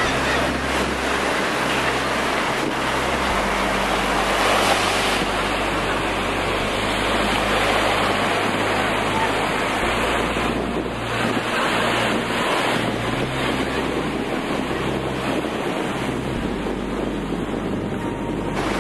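Ocean surf breaking and washing on the beach, a steady roar of noise, with wind rumbling on the microphone.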